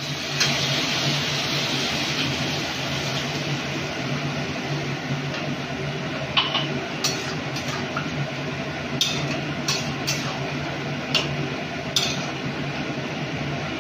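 Vegetables cooking in milk in a kadai, a steady hiss throughout, while a metal spatula stirs them and knocks against the pan several times, mostly in the second half.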